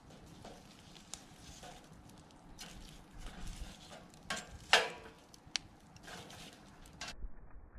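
Irregular crackles and knocks around a wood fire, with one sharp, loud crack about two-thirds of the way through.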